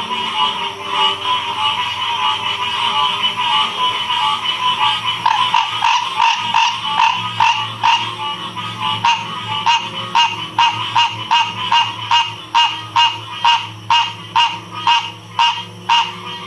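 Frog chorus: many frogs calling at once. From about five seconds in, one frog stands out with a steady run of short calls, about two to three a second.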